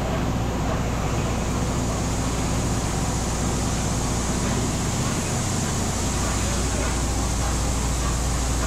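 Wood-fired turbo stove running under the pan: its blower and fire make a steady, even rush with a deep hum beneath.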